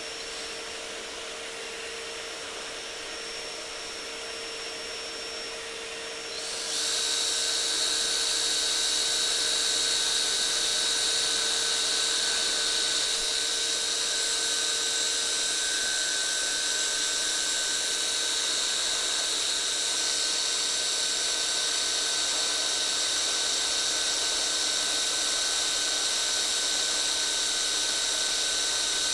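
Electric power drill running at a steady speed. A quieter steady hum steps up about six and a half seconds in to a louder, even high-pitched whine that holds without letting up.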